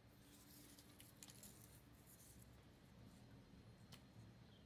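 Near silence: a few faint clicks and rustles from a strip of developed 35 mm film negatives being handled between the fingers, over a low room hum.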